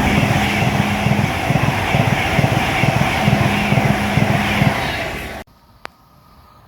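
A train passing close at speed: a loud rush of wheel and air noise with a rapid run of wheel beats over the rail joints. It cuts off suddenly about five seconds in to quiet background with a single click.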